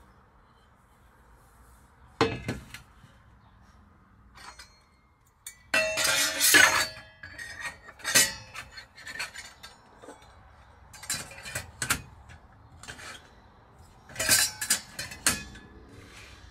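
Stainless steel percolator parts (pot, lid, basket) clinking and clanking as they are handled and fitted together. The knocks are scattered, and the loudest cluster comes about six seconds in with a brief metallic ring.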